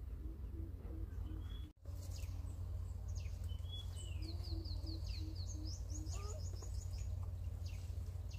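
Wild birds calling: a run of quick high chirps in the middle, with a low note repeated at an even pace, over a steady low rumble. The sound cuts out for an instant about two seconds in.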